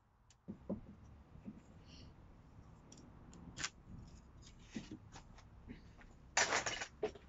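Hands handling a combination square and pencil against a wooden batten: scattered clicks, taps and light scratching, with a louder scraping rustle near the end.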